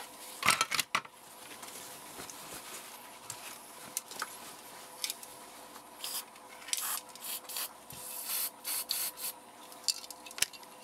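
Aerosol can of silver spray paint hissing in short bursts, the can wrapped in a paper towel, with rustling and clicking as it is handled.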